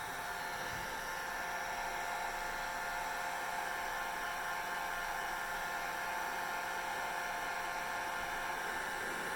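Hair dryer running steadily: an even blowing rush with a constant motor whine.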